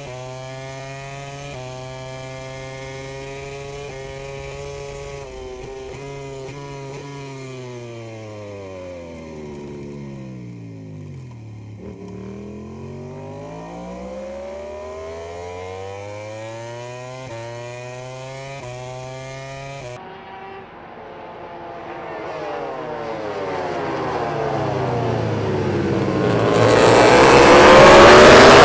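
A MotoGP race bike's engine heard from its onboard camera: running at high revs, then falling steadily in pitch as the rider brakes and drops to first gear for a slow corner, then rising again as it accelerates out and changes up through the gears. From about two-thirds of the way in, a pack of MotoGP bikes approaches and passes a trackside microphone, growing louder to a peak near the end.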